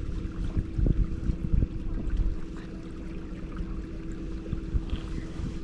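A steady low hum with a few low thumps in the first couple of seconds, like wind or handling knocks on the microphone.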